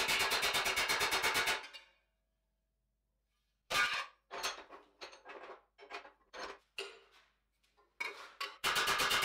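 Hammer beating thin stainless steel sheet over a steel stake in a bench vise, a fast even run of ringing strikes that stops about a second and a half in. After a short silence comes a string of separate, uneven metal knocks and clanks, and near the end the fast hammering starts again.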